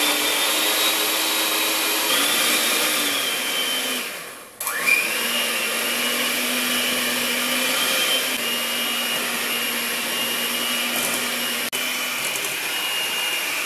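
Electric hand mixer running with a steady whine as its beaters mix cookie batter of butter, sugar and egg. About four seconds in it winds down and cuts out, then starts again with a rising whine and runs on steadily.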